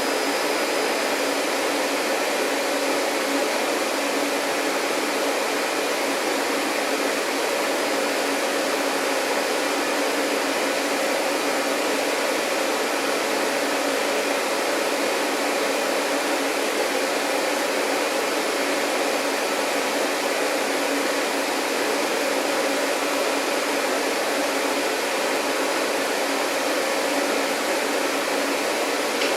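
Vacuum cleaner running steadily: a constant rush of air with a steady motor hum, unchanging throughout.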